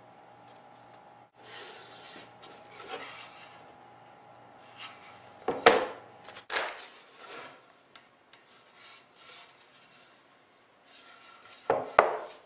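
Wood being worked by hand: irregular rubbing, scraping strokes across a wooden piece, with a few sharp knocks of wood set down or tapped, two of them close together near the end. A faint steady hum runs under the first half and then stops.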